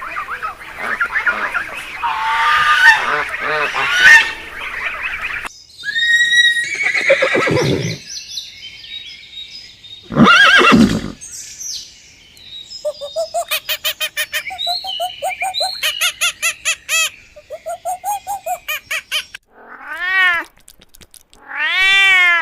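A sequence of different animal calls spliced one after another: a dense chorus of calls, then single pitched calls, a long run of rapid repeated calls at about five a second, and two rising-and-falling calls near the end.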